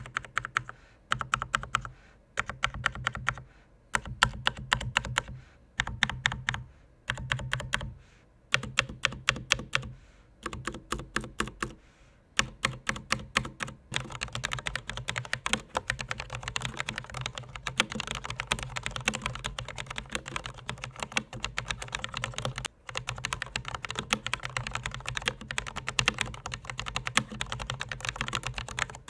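Typing on a Corsair K60 RGB PRO Low Profile mechanical keyboard with linear Cherry low-profile Speed switches: fairly quiet keystroke clicks, at first in short bursts with pauses between them, then continuous fast typing from about halfway through.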